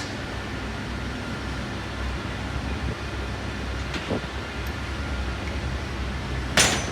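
Steady low workshop hum with hand tools knocking on engine metal: a light metallic tick about four seconds in and a short, louder clatter near the end.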